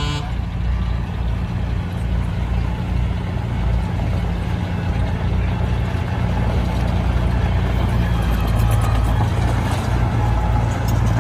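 Heavy diesel engine of earthmoving machinery running steadily with a deep drone. A short pitched sound comes right at the start, and a few faint clicks come near the end.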